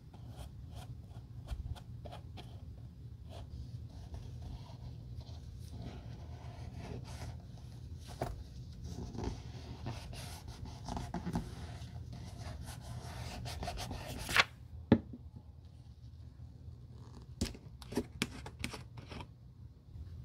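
Soft scratchy brushing and rubbing on leather as dye is worked onto a slipper's leather insole, with many small ticks and taps of handling. About two-thirds of the way through come two sharp louder clicks, then only a few scattered clicks.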